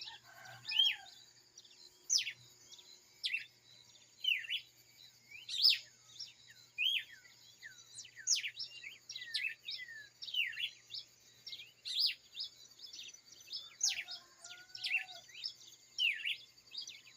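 Dawn chorus of birds: many short, sharp chirps sweeping downward in pitch, coming every half second or so, over a steady high-pitched buzz. A lower, whistled call sounds near the start and again about fourteen seconds in.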